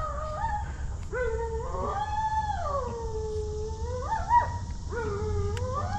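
Husky howling: a string of long wails that rise and fall in pitch, one after another with short breaks, the longest from about two to four seconds in.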